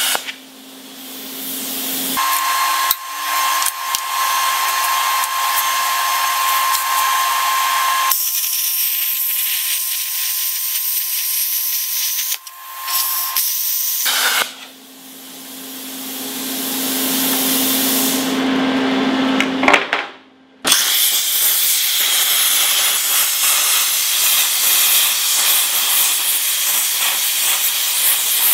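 Plasma cutter cutting through a steel tube: a loud, steady hiss of air and arc with a hum under it. It stops and restarts several times, with a short near-silent break about two-thirds of the way through.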